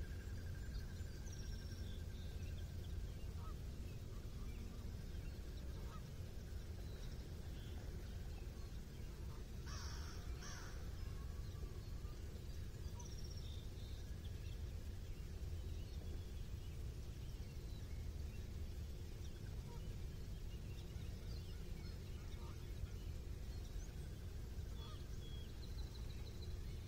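Wild birds calling by the water: scattered short chirps and one loud double call about ten seconds in, over a steady low rumble.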